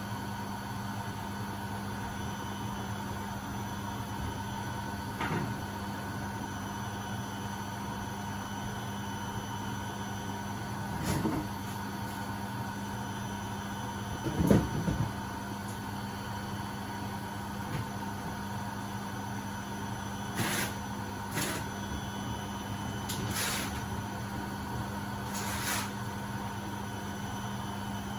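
Beko WMB71642W washing machine in its final spin at 1000 rpm: a steady hum and whine from the motor and spinning drum. Several short knocks and clunks come over it, the loudest about halfway through.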